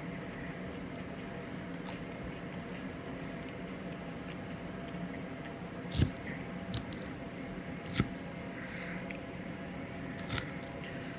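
Quiet chewing of food, with a metal fork clicking and scraping against a dinner plate four times in the second half, over a steady low hum.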